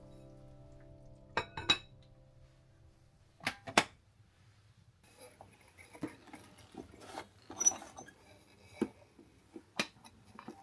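Dishes and cutlery clinking and knocking: two pairs of sharp clinks in the first few seconds, then softer scattered knocks and handling noise. The tail of soft music fades out at the very start.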